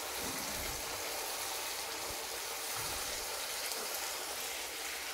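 Thick masala paste sizzling and bubbling in oil in a kadai as it is fried and stirred with a spatula: a steady frying hiss. The oil is separating from the paste, the sign that the masala is nearly done.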